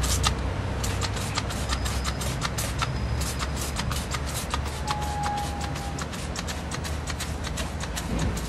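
Spray bottle of car cleaner being squeezed in quick, repeated short sprays, several a second, into a wheel arch to loosen mud.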